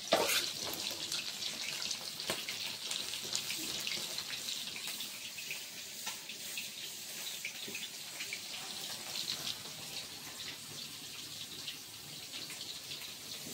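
Rohu fish pieces frying in hot oil in a kadhai: a steady sizzle with many small crackling pops.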